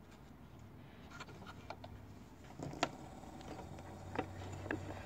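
A phonograph being readied to play a 78 rpm shellac record: a low hum under a few faint clicks and taps, with three sharper clicks in the second half, the first of them the loudest.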